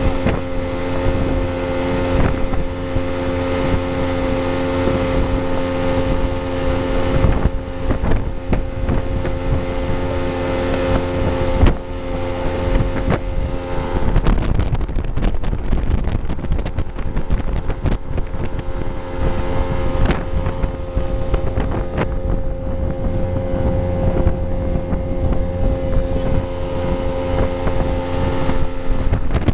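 Motorboat engine running steadily at cruising speed with a constant hum, under wind rushing on the microphone.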